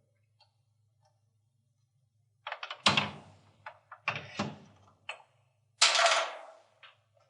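A few sharp metal clunks and knocks as a set screw on a garage door torsion spring winder is tightened with an Allen wrench, the loudest about a third of the way in and again near the end.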